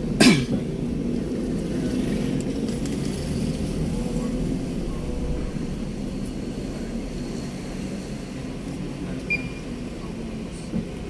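Steady low rumble of an ambulance on the move, its engine and road noise, with a brief loud knock just at the start.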